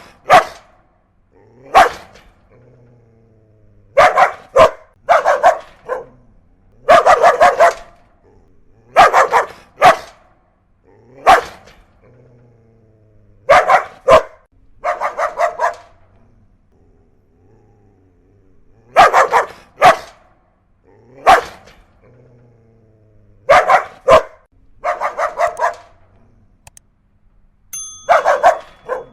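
An aggressive, angry dog barking in short volleys of one to about five sharp barks, with pauses of a second or two between volleys.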